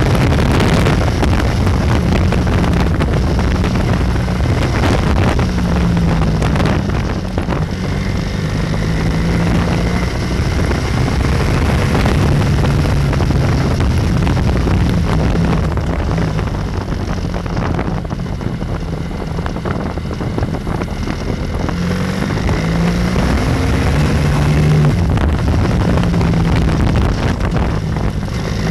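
BMW F800R's parallel-twin engine running under way, its pitch repeatedly climbing and dropping back with the throttle, over steady wind rush on the microphone.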